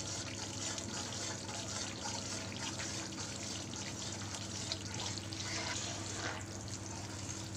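Wheat flour bubbling and sizzling in hot ghee in a steel kadhai while it is roasted and stirred with a steel spatula: a steady crackling hiss, with a low steady hum underneath.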